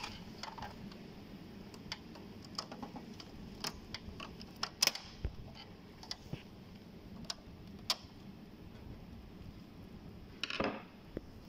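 Scattered light plastic clicks and taps as the pickup roller is worked loose and pulled off its shaft inside an HP LaserJet P2055 printer. Near the end comes a louder, brief rustle.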